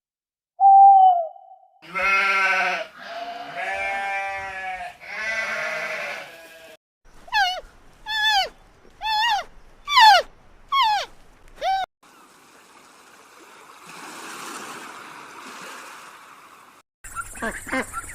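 Animal calls in quick succession. A short pitched call comes first, then three long bleats, then six quick calls that each drop sharply in pitch. A soft breathy hiss lasts several seconds, and quacking starts at the very end.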